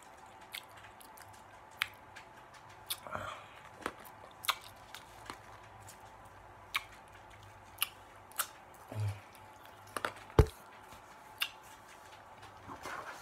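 Quiet eating and handling noises: scattered small clicks and ticks from chewing and from fingers picking at a small food cup, with one sharper knock about ten seconds in.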